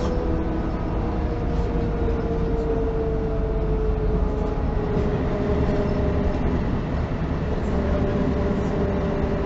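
Mercedes-Benz O405N1 city bus heard from inside the passenger cabin while under way: engine and drivetrain running steadily under a constant rumble. A whine in the sound slides slowly down in pitch over the first few seconds and then holds steady.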